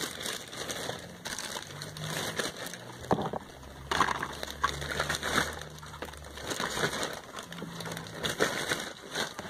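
Hands moving packaged cosmetics about: cardboard product boxes and plastic packaging rustling and crinkling, with scattered light knocks as items are picked up and set down.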